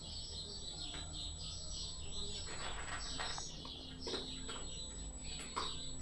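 Small birds chirping and twittering continuously, with a few short clicks and taps scattered through the second half.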